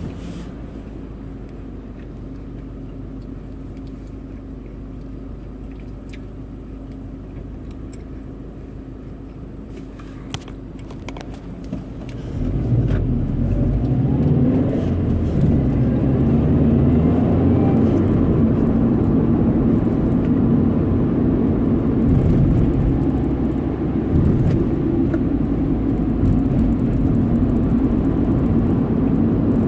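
Stock 2011 Subaru WRX's turbocharged flat-four engine running steadily at a low, even note. About twelve seconds in it gets much louder and stays loud, its pitch climbing at first as the engine is put under throttle.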